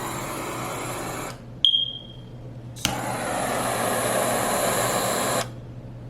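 Jet torch lighter burning with a steady gas hiss, its flame adjuster turned up to plus. It cuts off just over a second in, there is a sharp click with a short ring, then a click about three seconds in relights it, and it burns again until it stops near the end.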